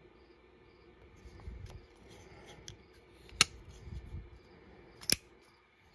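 Zero Tolerance 0393 folding knife handled in the hand, with small clicks and fiddling, then two sharp metallic clicks about a second and a half apart as the blade is snapped shut and flipped open again.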